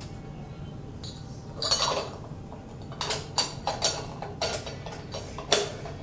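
Small glass and metal clinks and scrapes from parts being handled and fitted into the ceiling fan's light-kit sockets: a short rattle about two seconds in, then a string of sharp clicks, two or three a second, from about halfway.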